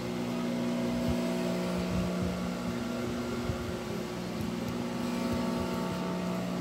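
Juki industrial sewing machine running with a steady motor hum while it stitches along the edge of a quilted pot holder.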